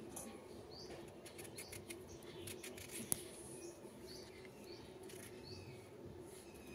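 A small kitchen knife scraping and clicking as it peels the skin off pumpkin slices, with a run of strokes and one sharp click about three seconds in. A small bird chirps repeatedly in the background, short rising chirps every second or so.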